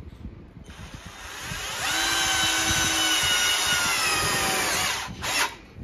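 KPT KDD12V 12 V cordless drill-driver driving a hex-head screw into steel: the motor and gear whine builds up, holds for about three seconds with the pitch sagging slightly under load, then stops suddenly, followed by a brief sharp knock.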